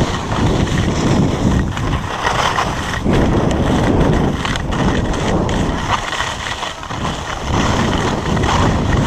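Wind rushing over the action camera's microphone during a fast ski run, with the skis scraping and hissing over the snow. The noise swells and eases every second or so, in step with the turns.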